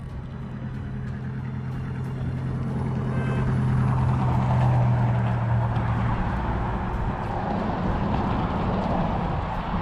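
A motor vehicle going past: a steady engine hum and tyre noise that swell to a peak about halfway through, the hum dropping away soon after while a rushing noise stays.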